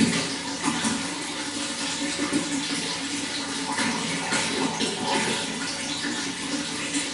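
Running water splashing and gurgling steadily, a continuous stream with many small splashes.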